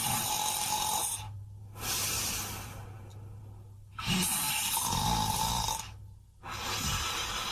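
Snoring sound effect: a regular cycle of loud, breathy snores about every two seconds. Some carry a whistling note, and another carries a low buzzing rumble.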